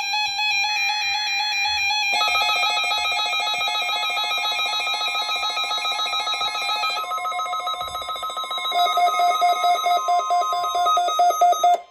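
Electronic emergency-alert tones for a NOAA Weather Radio required weekly test. In the first two seconds a steady tone runs under short bursts of higher sound. Then comes a fast-pulsing electronic alarm of several tones, which steps in pitch about seven and nine seconds in and cuts off just before the end.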